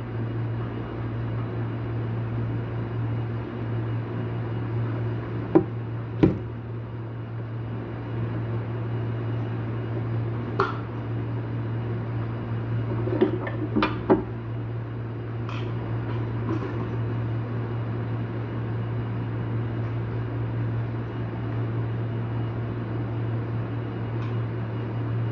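A steady low hum with a few scattered sharp clicks and clinks, the loudest two about five to six seconds in.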